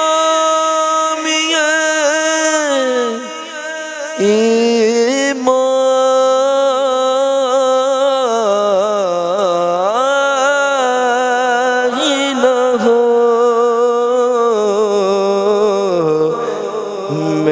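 A man singing a naat (Urdu devotional song) into a microphone in a single unaccompanied voice. He draws out long held notes decorated with wavering melismatic runs, with a brief breath about three seconds in.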